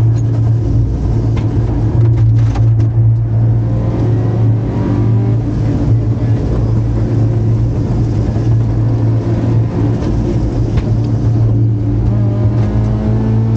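Rally car's engine heard from inside the cabin at stage pace, loud and continuous. Its pitch rises and falls with throttle and gear changes, climbing again near the end.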